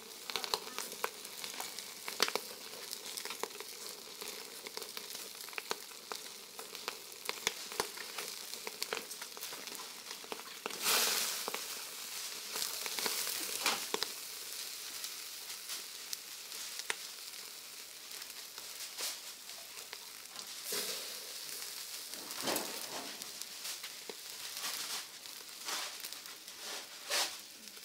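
Catfish grilling on a wire rack over a charcoal clay stove, sizzling and crackling with many sharp pops as fat drips onto the hot coals. There are louder hissing flare-ups about eleven seconds in and a few more later.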